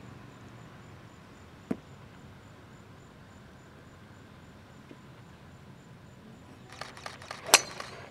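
Two crisp golf shots, a club face striking a ball, about a second and a half in and again near the end; the second is louder and comes amid a few scattered claps. A faint steady high buzz lies under it all.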